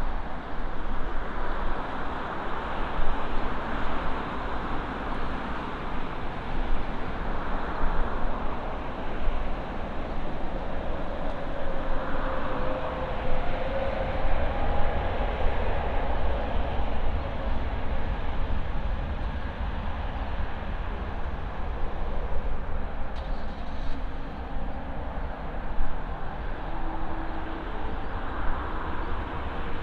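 Jet airliner engines roaring steadily, with a faint engine whine that rises and then falls around the middle, over wind buffeting the microphone.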